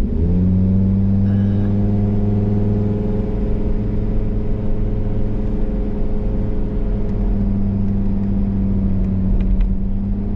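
Car being driven at a steady speed: a steady engine hum over low road rumble, its pitch rising briefly at the start and then holding level.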